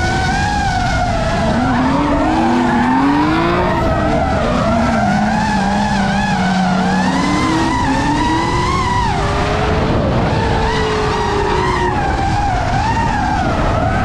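Drift cars at high revs, several engine notes rising and falling as they slide, over steady tyre-skidding noise.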